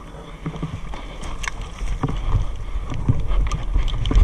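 Running footsteps through grass with the clatter of carried gear, irregular thumps getting louder through the second half.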